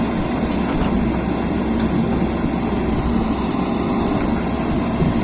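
Diesel engine of a heavy earthmoving machine (a backhoe loader or dozer) running steadily.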